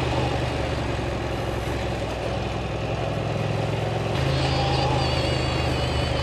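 Ducati motorcycle's twin-cylinder engine running steadily under way, with wind rush. About four seconds in, the engine note gets stronger and a higher wavering whine joins it.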